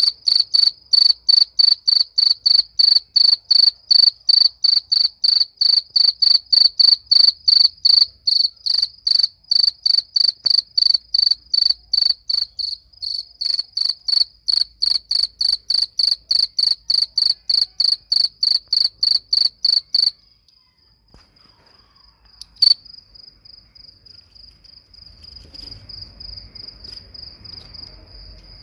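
Cricket chirping close by: a steady run of loud, high chirps, roughly three a second, that stops abruptly about twenty seconds in. A fainter continuous high trill at the same pitch carries on afterwards, with a single sharp click a couple of seconds later.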